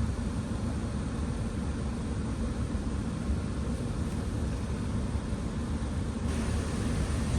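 Steady low rumble of a running vehicle, with a hiss that brightens abruptly about six seconds in.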